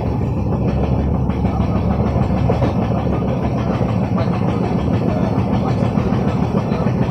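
Steady rumble of LHB passenger coaches' wheels running on the track at speed, heard from on board the train.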